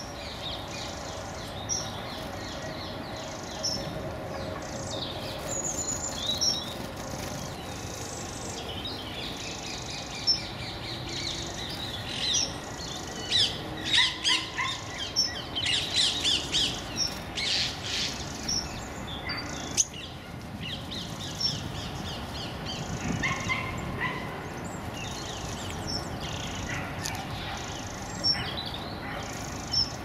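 Small songbirds chirping and calling with many short, high notes, busiest about halfway through.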